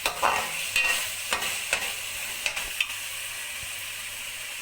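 Urad dal frying in oil and spices in a pot, sizzling steadily, while a spoon stirs and scrapes against the pan with about eight quick scrapes and knocks in the first three seconds; after that only the sizzle goes on.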